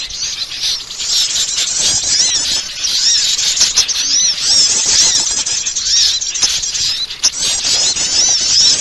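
Many small garden birds twittering and chirping at once, a dense, noisy tangle of quick high-pitched notes with no pause: a bird-trapping lure call ('pikat') meant to draw small birds in.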